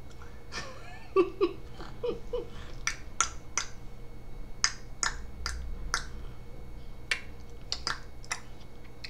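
An adult clicking their tongue: a string of sharp clicks in short irregular runs, most of them from about three seconds in.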